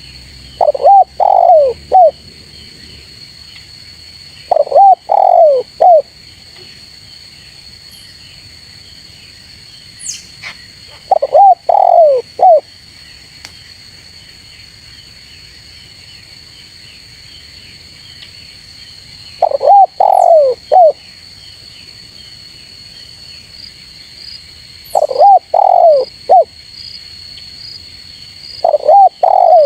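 Spotted dove (tekukur) cooing: six short phrases of three or four falling coo notes, spaced irregularly several seconds apart. It is the bird's territorial call, used to lure rival doves. A steady high insect buzz runs underneath.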